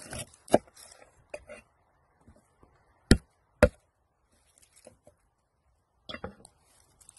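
A garlic bulb broken apart under a cleaver on a wooden cutting board: the papery skin crackles as the blade presses down, then two sharp knocks about half a second apart, a little after three seconds in. More crackling of dry skin comes near the end as cloves are pulled off by hand.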